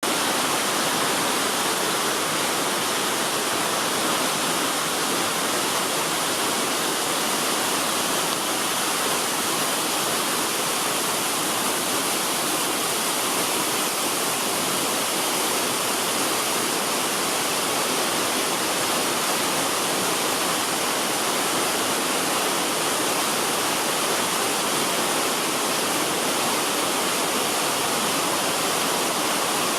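Waterfall crashing steadily, a constant rushing noise of falling water without letup.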